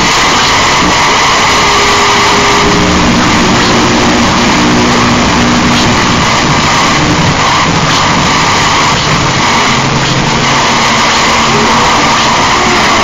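Harsh noise music: a loud, unbroken wall of distorted noise, with short steady low tones surfacing in the first half.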